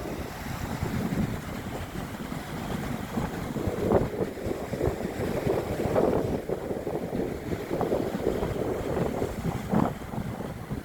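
Wind buffeting the microphone by the sea: a rough, gusting noise that swells and eases, with water noise beneath.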